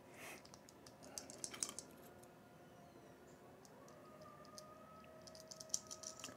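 Faint clicking of small metal parts handled by hand: nuts and a jumper bar being fitted onto the threaded brass terminal studs of a Copeland compressor's terminal plate. A few clicks come about a second in, and a quicker run of clicks near the end.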